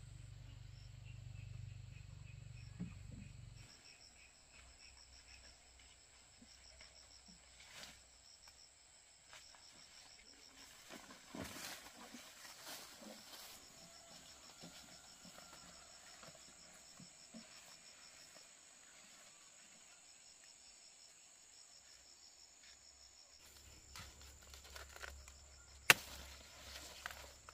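Insects chirping faintly in a fast, pulsing high trill over a steady high whine. A few light knocks and rustles, a low hum at the start and again in the last few seconds, and one sharp click near the end, which is the loudest sound.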